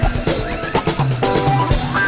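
Electronic intro music with a steady beat, held synth tones and a held low bass note in the second half.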